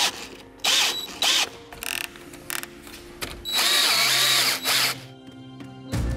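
DeWalt cordless drill-driver winding bolts into a plywood board: several short bursts of the motor, then one longer run of about a second, its pitch wavering with the load.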